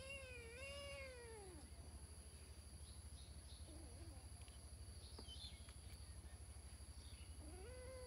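A kitten meowing twice: one drawn-out, wavering meow at the start and a shorter one near the end.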